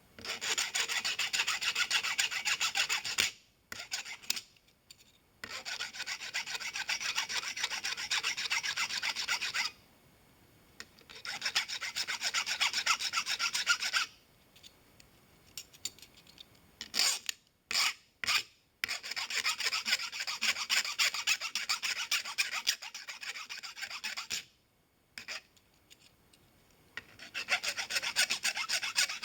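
Flat file rasping across the end of a cut 1/8-inch brass rod pin to smooth it, in quick repeated strokes. The filing comes in spells of a few seconds, with short pauses and a few light clicks between them.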